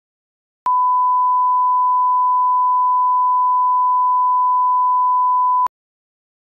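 Steady 1 kHz sine-wave reference tone, the 'bars and tone' line-up signal that goes with SMPTE colour bars for setting audio levels. One single pitch at a constant loud level, starting abruptly just under a second in and cutting off abruptly about five seconds later.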